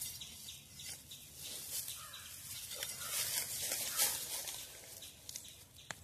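Irregular crunching and scraping of gravelly soil as earth is dug away from a cassava root with a metal bar, in short sharp strokes at uneven intervals.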